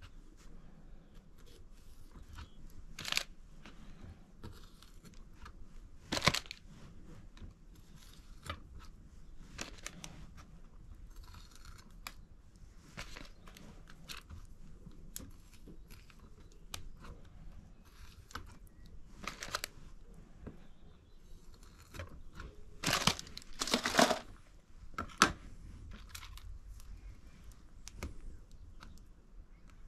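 Intermittent handling noises from food preparation: soft rustles and small clicks, with a few sharper, louder ones about 3 and 6 seconds in and a cluster between about 23 and 25 seconds in.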